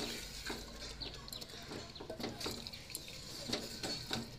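Spatula scraping and knocking against an earthen clay pot as fried chicken pieces are stirred into thick masala, in irregular strokes about twice a second.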